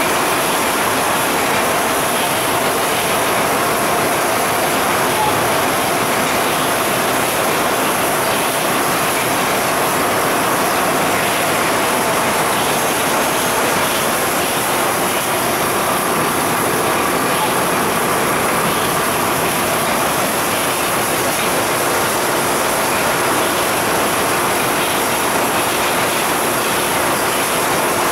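A 23,000-cans-per-hour canning line running: a loud, steady mechanical din with a dense, unbroken clatter of cans and machinery.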